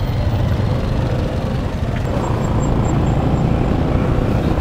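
Yamaha FZ V3 motorcycle's single-cylinder engine running steadily as the bike rides on, with wind rushing over the microphone.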